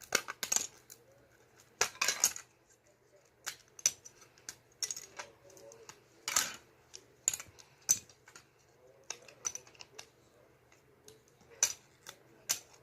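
Plastic Lego bricks clicking and clacking as they are pried apart and handled, in irregular sharp clicks, some in quick pairs; the bricks are stuck tight and hard to pull off.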